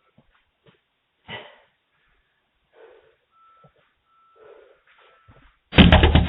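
Rapid, loud pounding on a front door starting near the end, heard through a doorbell camera's microphone. Before it there are only faint scattered sounds and a single thump about a second in.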